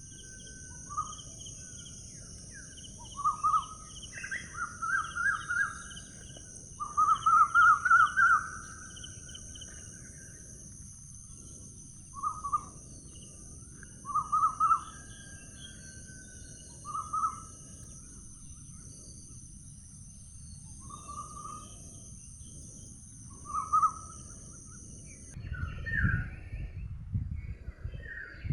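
Birds singing short, rapid trilled phrases every few seconds over a steady high buzz of insects. The insect buzz cuts off abruptly about 25 seconds in, and a low rumbling noise rises near the end.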